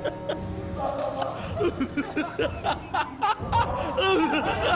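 A man's exaggerated, evil-sounding maniacal laughter over background music.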